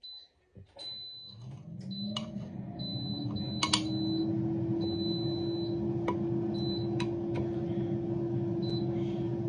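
A small electric kitchen appliance motor spins up, its hum rising in pitch over about three seconds, then runs steadily. A few clicks and knocks of handling come early on.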